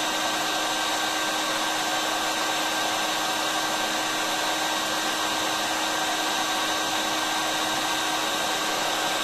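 Hot air gun blowing steadily: a constant rushing of air with a steady hum and whine from its fan motor.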